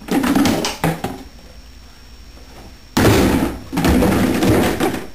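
Plastic toy buckets being tipped and tossed about, with loud clattering of plastic bins and toys hitting each other and the floor: a clatter just after the start and again about a second in, then a longer noisy spill of clattering from about three seconds in.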